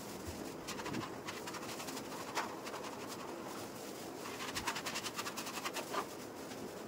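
A hand painting tool scratching in strokes across a wall as paint is worked on, with a quick run of rapid scratchy strokes about four and a half to six seconds in.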